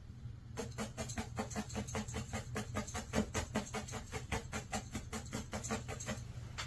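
Felting needle stabbing rapidly and repeatedly into wool, about four to five short pokes a second, starting about half a second in and stopping shortly before the end.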